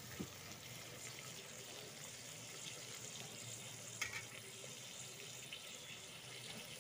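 Potatoes and onions frying in oil in an aluminium pressure cooker: a faint, steady sizzle, with one light tap about four seconds in.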